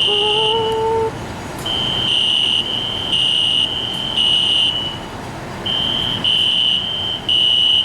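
Building fire alarms sounding a loud, high-pitched beeping in groups of three, with a short pause about five seconds in. More than one alarm sounds out of step, so the beeps ride over a steadier tone.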